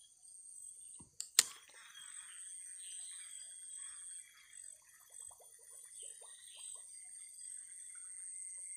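Steady high-pitched insect buzzing from the plantation undergrowth, with two sharp clicks about a second in, the second one loud, and faint scattered ticks later on.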